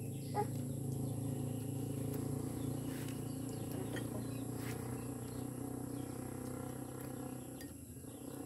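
Steady low hum of a distant engine that fades out near the end, with a few faint bird chirps and soft clicks over it.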